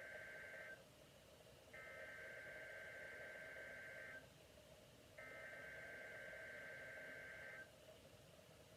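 Faint electronic ringing tone in three bursts of about two and a half seconds, about a second apart, over a low steady hum.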